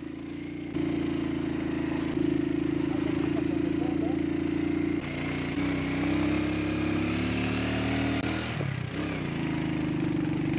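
Motorcycle engine running while riding, heard from on the bike. Its note steps and shifts several times, rises for a few seconds past the middle, and dips briefly near the end.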